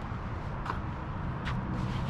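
Two light footsteps on a woodland trail, about a second apart, over a steady low rumble.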